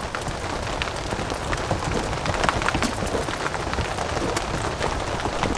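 Steady rain falling on the fabric of a Polish army poncho tent, heard from inside, a constant hiss scattered with many small sharp drop ticks.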